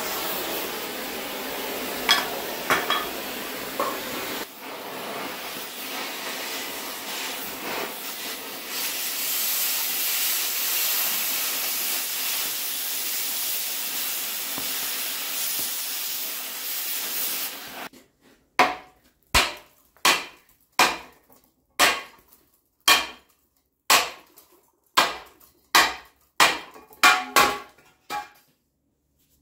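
Oxy-fuel cutting torch hissing steadily as it cuts a bracket off a steel Jeep axle tube; the hiss cuts off suddenly about two-thirds of the way through. It is followed by about a dozen sharp metal strikes, roughly one a second, like hammer blows on the axle tube.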